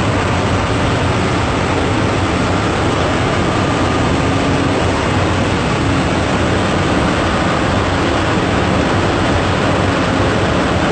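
APSRTC Super Luxury bus's engine and road noise heard from inside the driver's cab while cruising on a highway: a loud, steady rumble and rush with no change in pace.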